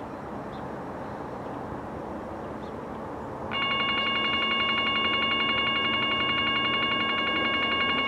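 Approaching BNSF diesel locomotive running with a low rumble, then its air horn sounds suddenly about three and a half seconds in: a loud, steady multi-note chord that is held from then on.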